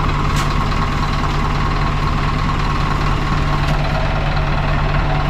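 Heavy truck's engine running at a steady idle, a continuous even hum, with two faint clicks about half a second and nearly four seconds in.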